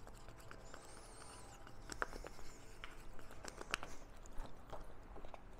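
Bondo wood filler and hardener being stirred in a small plastic cup with a stirring stick: soft, irregular scraping and clicking, with a few sharper clicks in the second half.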